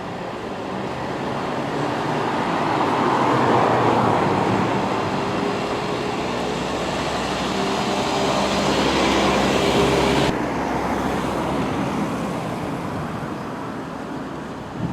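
Street traffic: motor vehicles passing close by, one swelling up and fading about four seconds in, another with a steady engine hum up to about ten seconds, when its hiss cuts off suddenly.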